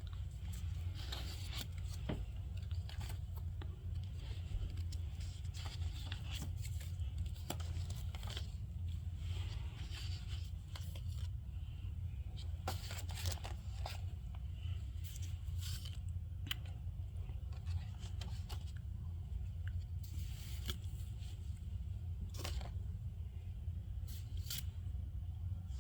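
Packaging being handled and torn open: irregular crinkles, clicks and scrapes over a steady low hum.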